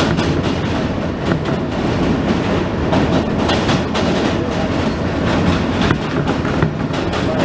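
New York City Subway train running across a steel bridge, heard from inside the car: a steady, loud rumble of wheels on rails with irregular clicks and clatter over the rail joints.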